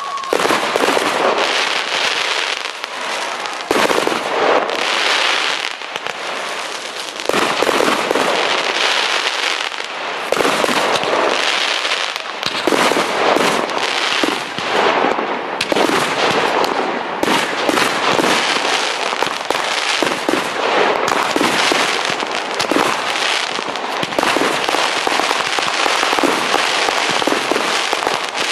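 Fireworks display: aerial shells bursting one after another with dense crackling in between, starting abruptly and keeping up a continuous barrage.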